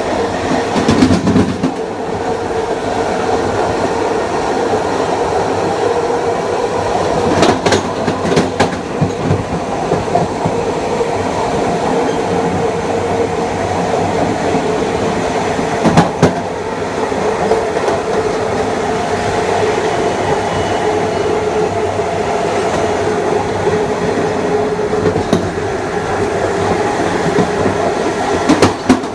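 Long Island Rail Road Kawasaki M9 electric multiple-unit train running at speed, heard on board: a steady rumble of wheels on rail with a steady hum. A few sharp clacks from the wheels over rail joints come about a quarter of the way in and again near the middle.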